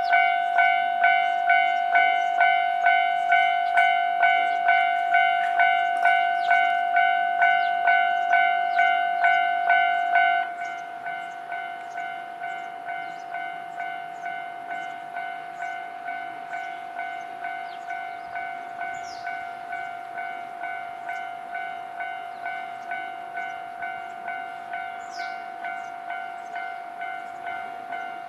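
Japanese railway level-crossing warning bell ringing in an even rhythm of nearly two strikes a second, sounding that a train is approaching. About ten seconds in, it abruptly drops to a quieter, duller ring and keeps going at the same pace.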